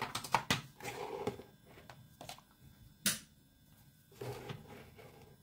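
Handling noise: scattered clicks and short rustles as a braided power-supply cable and small wired circuit modules are moved and set down on a cutting mat, with one sharper click about three seconds in.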